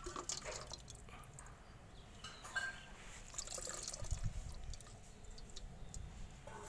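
Liquid pouring and dripping from a small glass bottle over a figurine into an empty metal tin, faint, with a few small clicks and taps.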